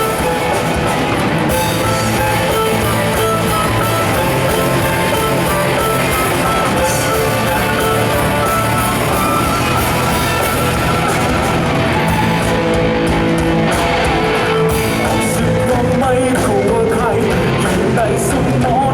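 A band playing loud rock music with electric guitar.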